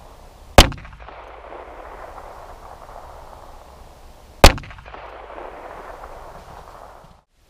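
Two shots from a compact .380 ACP pistol, about four seconds apart, each a sharp crack with a short ring after it.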